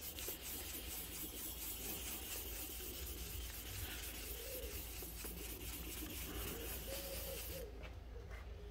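Wet sanding of a painted car wing mirror cover by hand with 1500-grit paper on a foam block: steady rubbing of abrasive paper over wet paint, which stops about a second before the end.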